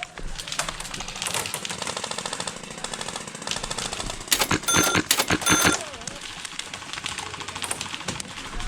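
Airsoft guns firing rapid full-auto bursts, a fast rattling stream of shots, with the loudest bursts about halfway through.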